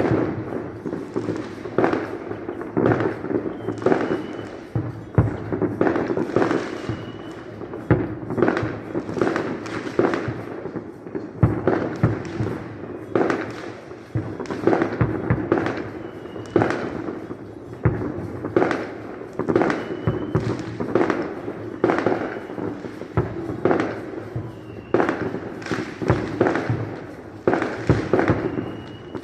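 Aerial fireworks bursting in a dense, irregular barrage, one or two bangs a second, with short high whistles now and then.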